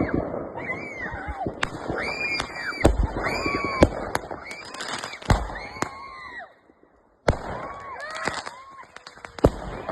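Fireworks going off all around: many sharp bangs and pops at uneven intervals, with short rising-and-falling high tones over them. The sound cuts out for under a second about two-thirds of the way through, then the bangs resume.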